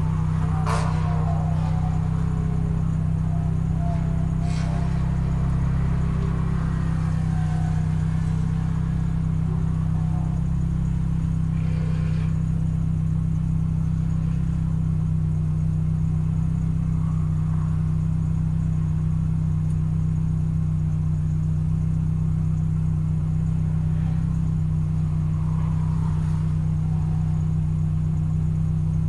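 Car engine idling steadily, heard from inside the cabin as an even low hum, with a few faint ticks.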